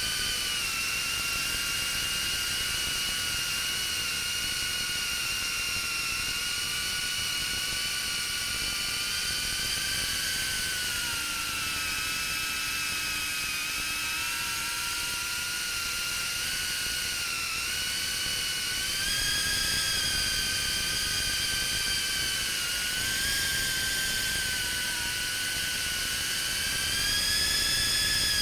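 FPV quadcopter's motors and propellers whining, the high pitch dipping and rising with the throttle, climbing and getting louder near the end.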